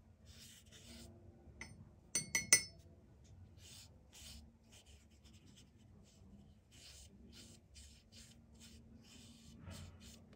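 Watercolour brush swishing across paper in a series of soft strokes. About two seconds in come three quick, sharp ringing clinks, the loudest sounds.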